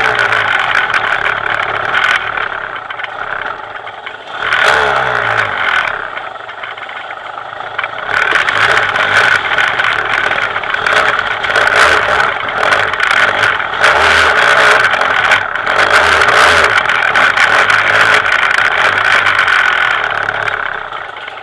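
KTM 200 EXC two-stroke enduro engine under way on a rough trail, revving up and backing off with the throttle, easing off twice in the first eight seconds and then pulling steadily until it fades near the end. Frequent sharp knocks and rattles from the bike going over rocks and roots.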